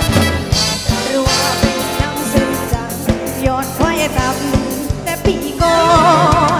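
Thai ramwong dance-band music, taken straight from the mixing desk: a steady drum beat under a wavering sung or played melody.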